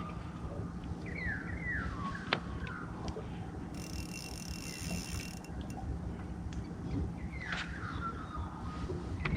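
Birds calling with short descending notes, a few times, over a steady low rumble and faint hum, with one sharp click a little over two seconds in.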